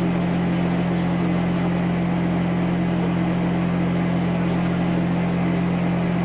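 An engine idling steadily: a constant low hum with no change in speed.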